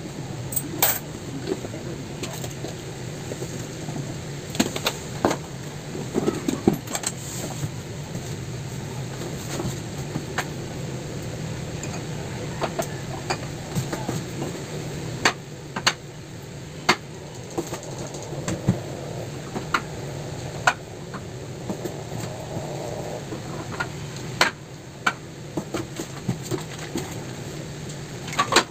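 Packaged goods being handled and set onto store shelves from a cardboard box: scattered clicks, knocks and rustles of packets and cans, over a steady low hum.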